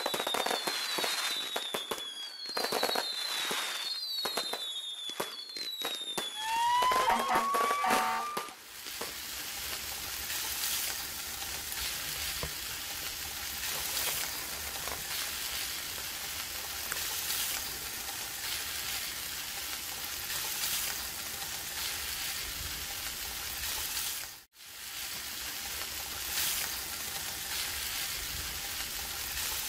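Fireworks: several whistles falling in pitch, mixed with sharp pops and crackles, for about the first eight seconds. Then a steady sizzle like food frying, with a brief drop-out near the end.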